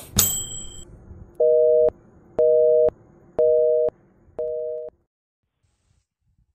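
A short high ding from a notification-bell sound effect, then four electronic beeps about a second apart, each about half a second long and steady in pitch, the last one quieter.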